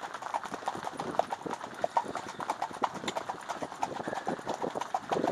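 Hooves of a pair of harnessed chestnut horses clip-clopping on a dirt-and-gravel track, an irregular run of many overlapping hoofbeats.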